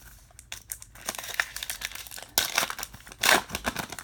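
Baseball card pack wrapper crinkling as it is handled, in a run of sharp crackles with louder bursts about two and a half and three and a quarter seconds in.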